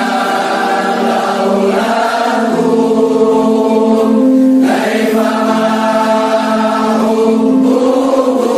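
Background music: a group of voices singing together in long held notes, with no drums.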